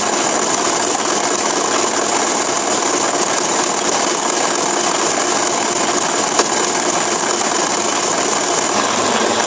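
Hitachi 18-volt lithium-ion cordless drill running steadily under the trigger, driving a wooden motorcycle wheel through an egg-beater hand-drill gear transmission and freewheel, with the whir and rattle of the motor and gears. The drive is running in reverse, and the sound begins to taper off at the very end.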